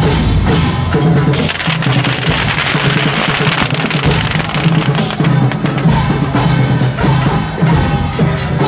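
A string of firecrackers crackling in rapid sharp cracks, densest from about one to four seconds in. Music with drums and percussion plays under it.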